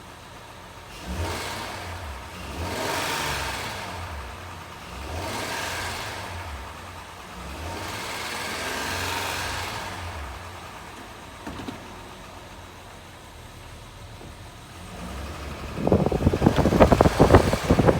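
2009 Honda Accord's 3.5-litre V6 engine running with a low, uneven pulsing flutter, revved three times in the first ten seconds. The owner is unsure whether the flutter is normal. Near the end come loud, irregular rattling thumps.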